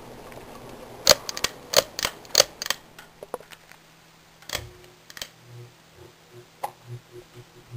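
Sierra Victorian Copy ceiling fan's motor humming steadily, the hum dying away about a second in. A quick run of about six sharp clicks follows, then a few scattered clicks, and a faint, unevenly pulsing low hum comes in about halfway through.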